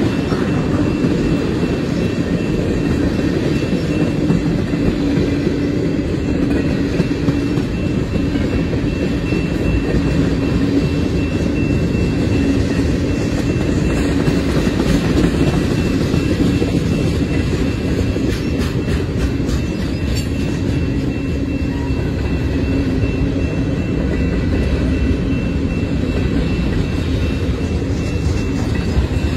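Freight train cars rolling past at close range: tank cars, then lumber-loaded centerbeam flatcars. Steel wheels make a steady rumble on the rails with some clickety-clack, and a faint steady high tone sits above it.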